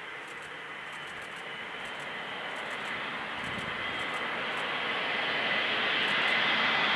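Engines of a large military transport aircraft on approach, a rushing drone with a steady high whine, growing steadily louder as it nears.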